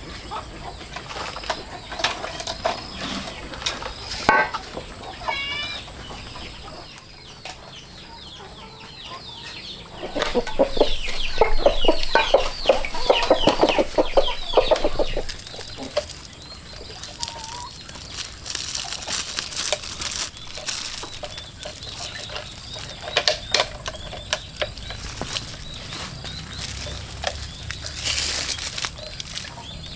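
Chickens clucking, with a loud run of rapid squawking from about a third of the way in for several seconds.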